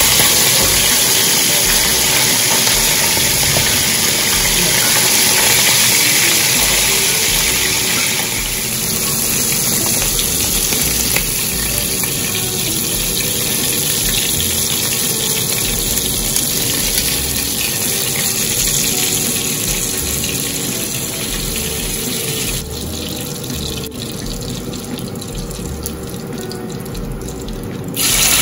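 Saltfish pieces frying in hot oil in a cast-iron skillet: a steady sizzle. It thins out over the last few seconds and swells again near the end as a fresh piece is dropped into the oil.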